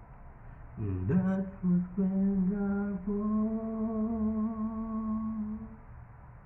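A man singing unaccompanied without words: a short rising phrase about a second in, then one long held note with a slight vibrato that fades out near the end, closing the song.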